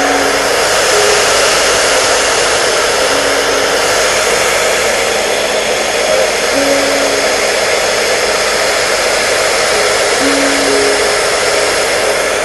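Electric hair dryer running steadily, a constant even rush of air and motor noise used as white noise to soothe a baby. A few faint held notes of a slow tune sound softly underneath.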